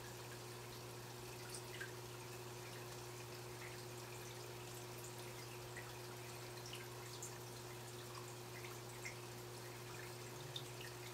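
Faint aquarium water circulation: a soft trickling hiss with scattered small drips and plinks over a steady low hum.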